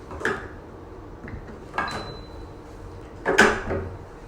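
Hydrodermabrasion handle's tube connectors being pushed into their sockets on the machine: three short knocks and clicks, the loudest about three seconds in.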